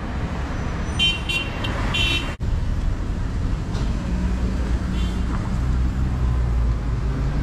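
Steady low engine and road rumble of a small camper van driving through town traffic, with a few short high-pitched tones about a second in.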